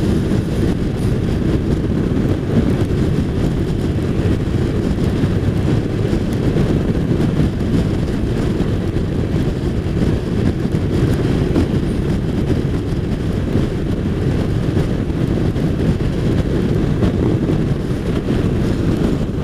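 Steady low rumble of wind rush and road noise from a touring motorcycle cruising at speed on a wet road, with no engine note standing out and no change in pace.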